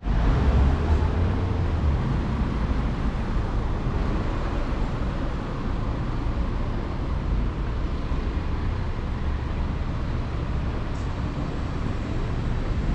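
City street ambience: steady traffic noise with a low rumble.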